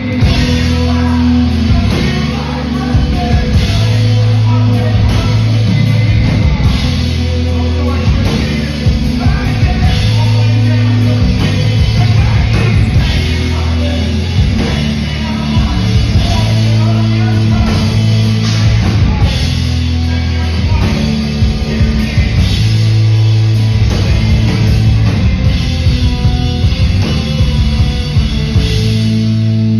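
Rock band playing live, loud: electric guitars, bass and a full drum kit with singing, heard from the audience in a large hall.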